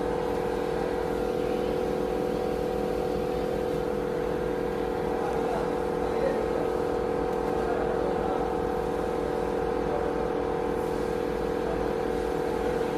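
A vehicle engine running steadily at idle with an even, unchanging hum.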